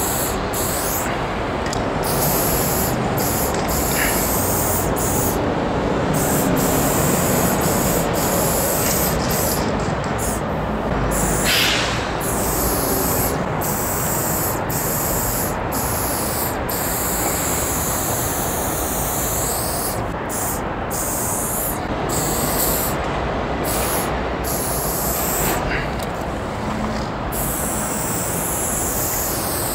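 Aerosol spray-paint can hissing in repeated strokes, the hiss cutting off briefly many times between strokes, over a steady low rumble.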